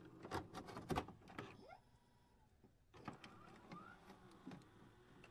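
Faint glitch-style intro sound effects: a quick run of sharp clicks and crackles in the first second, then softer digital crackling with a few short rising chirps.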